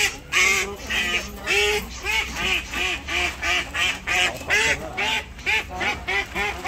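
A duck quacking over and over, about three quacks a second, as it is held and put into a sack.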